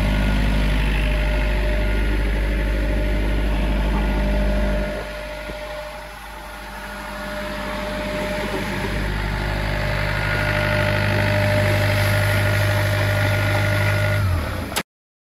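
Doosan 7/41 portable air compressor's four-cylinder Yanmar diesel engine running steadily at idle, dropping quieter for a few seconds midway before coming back up, then cutting off abruptly near the end.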